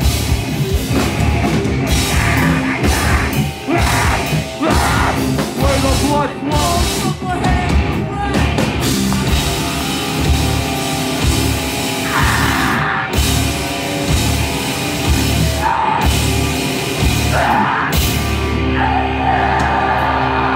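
Live rock band playing loud in a club: electric guitars, bass guitar and drum kit, with vocals over the top.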